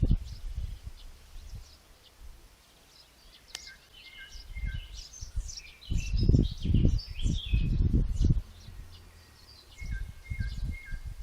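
Small birds chirping and singing in short repeated phrases, some notes falling in pitch. Heavy low rumbles come and go beneath them and are loudest between about six and eight and a half seconds in.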